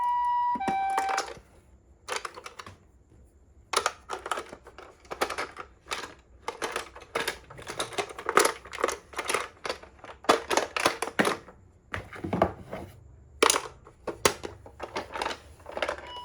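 A toy ambulance's electronic two-tone siren sounds for about a second and cuts off. After a short pause comes a long run of irregular clicking and rattling, the plastic toy minicar being handled.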